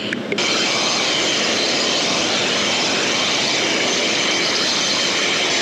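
A cleaning jet blasting through a refrigeration condenser coil: a loud, steady rushing hiss that starts suddenly about half a second in.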